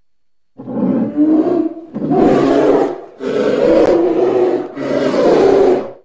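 Polar bear calling: four long calls in a row, each about a second long with short breaks between, starting about half a second in.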